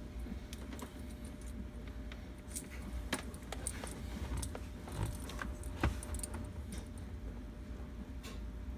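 Scattered light clicks, ticks and small rattles from handling wires and small hand tools, over a steady low hum.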